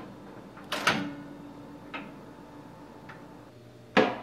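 Hamilton Beach microwave's push-button door release clicking, then the door latch letting go with a loud clack as the door pops open, followed by a couple of small clicks. Right at the end, a sharp loud thump.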